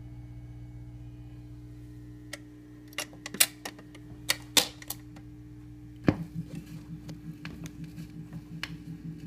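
The 45-rpm automatic record changer of a 1956 RCA Victor 7-HF-45 record player cycling: a run of sharp mechanical clicks, then a thump about six seconds in, followed by light ticking and rumble. A steady low hum sounds throughout.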